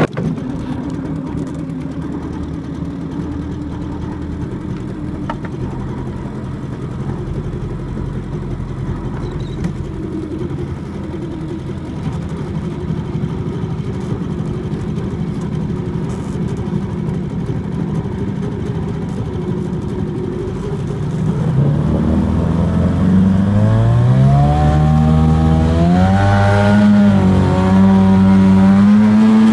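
Mercury Mark 28 two-stroke racing outboard on a small hydroplane. It drops suddenly to a low, steady run, then a little after twenty seconds in it is throttled up. Its pitch climbs and wavers up and down as it revs, and it grows louder.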